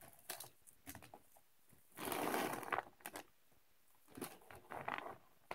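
Plastic candy packaging being handled: a bag and wrapped candies crinkling and rustling in two short spells, about two seconds in and again near the end, with light clicks and taps between.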